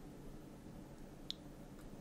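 Faint room tone with a single short click about a second in.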